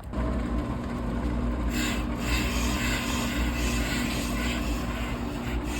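Brake lathe resurfacing a brake rotor: the cutting bit scrapes steadily across the spinning disc over a constant motor hum.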